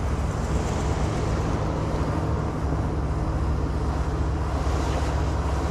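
Plow truck's engine running steadily, a low, even hum with road noise.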